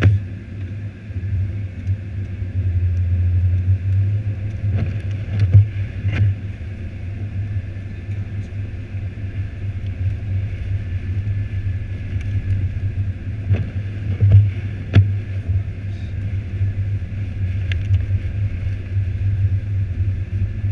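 A car being driven, with a steady low rumble of engine and road noise. Sharp knocks and bumps come in two clusters, about five seconds in and again about fourteen seconds in.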